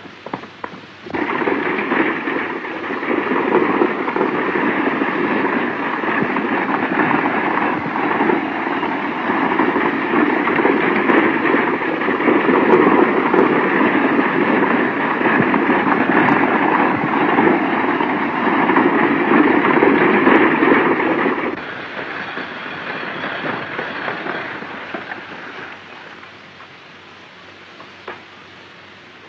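Galloping horses pulling a runaway stagecoach: a dense, steady rumble of hooves and wheels. It starts suddenly about a second in, drops sharply about two-thirds of the way through and fades out a few seconds later.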